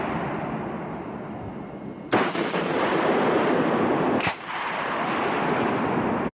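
Carl Gustaf 84 mm recoilless rifle firing. There is a sharp blast about two seconds in and another about four seconds in, each followed by a long rolling echo.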